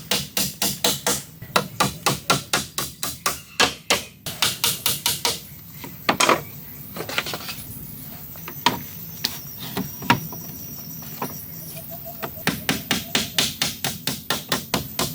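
Rapid, even strikes of a tool on wood, about four a second, breaking off after about five seconds to a few single knocks, then starting again near the end.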